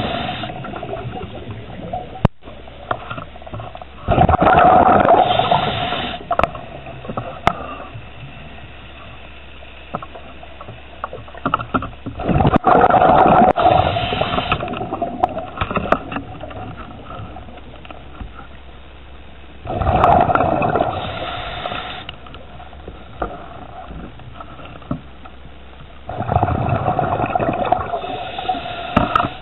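Scuba diver's regulator breathing underwater: exhaled bubbles rush out in a loud burst four times, about every seven seconds, each lasting about two seconds. Between the bursts there is a quieter steady hiss and a few small clicks.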